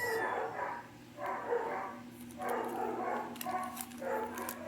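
A dog barking, about five calls roughly a second apart.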